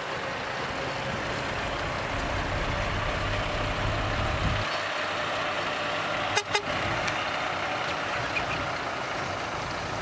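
Heavy loaded dump truck's diesel engine running as the truck reverses over rough dirt; the deep engine note strengthens and then drops away sharply about halfway through. Two sharp knocks come close together a little later.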